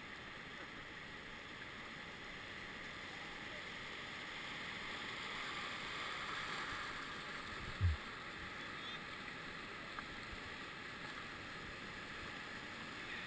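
Steady rush of river rapids around a raft, swelling a little in the middle, with one dull low thump about eight seconds in.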